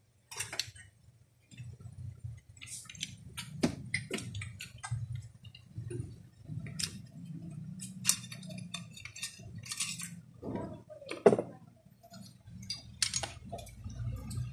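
Irregular metallic clicks and clinks of small parts of a Daisy Power Line 1200 air pistol and a screwdriver being handled during disassembly, over a low handling rumble. One sharper knock comes about eleven seconds in.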